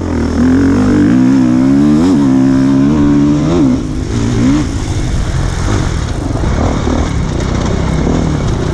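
Beta 390RRS four-stroke single-cylinder dirt bike engine running under load on the trail. Its note rises and falls several times as the throttle is worked, then turns rougher and less distinct about halfway through.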